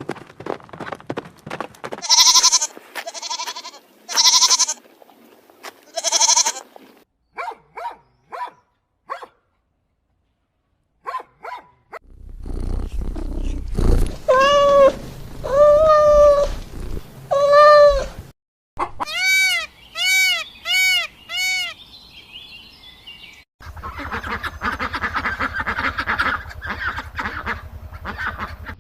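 Farm animal calls in a run of separate short clips. There are four pitched calls early on, three longer pitched calls in the middle and a quick run of five short calls, with a stretch of rough, noisy sound near the end.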